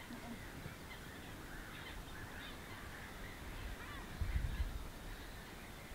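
Faint, distant waterfowl calls, with a brief low rumble about four seconds in.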